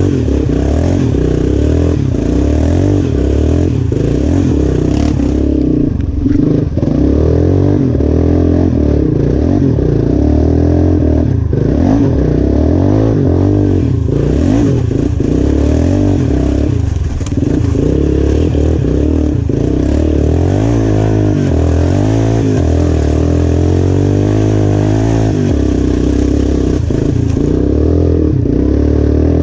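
Yamaha Raptor 350 ATV's single-cylinder four-stroke engine running under way, revving up and down as it is ridden, on a freshly cleaned and rejetted carburetor.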